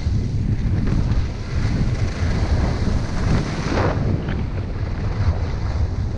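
Wind rushing over a GoPro's microphone on a skier moving downhill, with skis hissing and scraping over packed snow; a louder scrape of the ski edges swells up around the middle.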